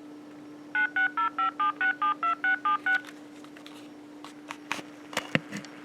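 Uniden EXS2080 cordless phone dialing a number: a quick string of about eleven touch-tone beeps, then a few clicks. Under it runs a steady buzz, which the owner puts down to 60 Hz interference from a non-OEM power adapter.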